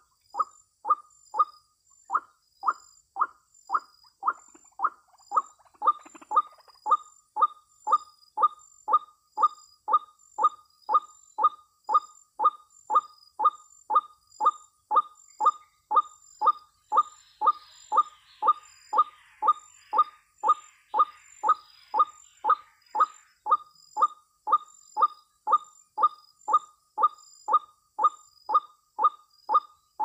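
White-breasted waterhen's 'ruak' call, repeated very evenly about twice a second. For several seconds past the middle, a scratchy chatter from another bird sounds over it.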